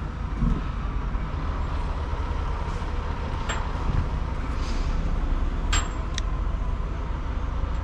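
A heavy vehicle engine idling with a steady low rumble, with a few sharp clicks and knocks scattered through it.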